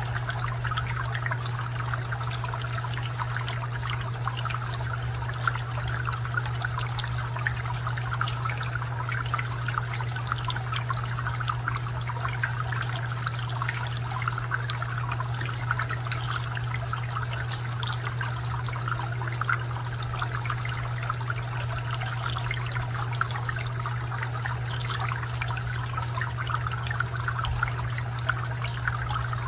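Garden fountain water trickling and splashing steadily, with a steady low drone underneath.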